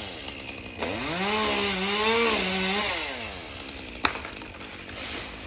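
Chainsaw revving up about a second in and cutting through a limb, its pitch sagging under load, then dropping back to idle after about two seconds. A sharp click about four seconds in.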